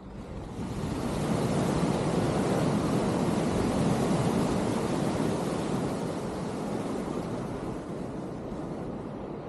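Steady rush of wind and water while riding an electric hydrofoil board, building over the first second or so as the board picks up speed, then holding steady. No motor whine stands out.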